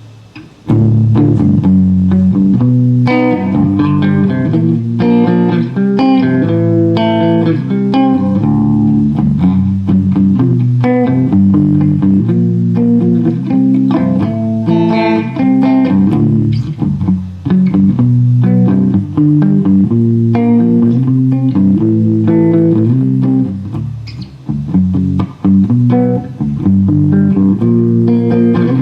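Guitar music with a plucked bass line, starting suddenly about a second in.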